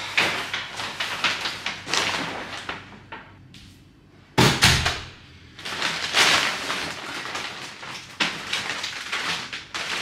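Rustling and knocking of things being handled, in irregular bursts, with one heavy thud about four and a half seconds in.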